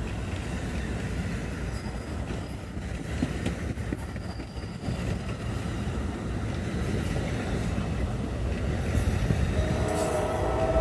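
NJ Transit Multilevel double-deck passenger coaches rolling past on the rails with a steady low rumble of wheels and clatter. About ten seconds in, a high pitched tone joins and becomes the loudest sound.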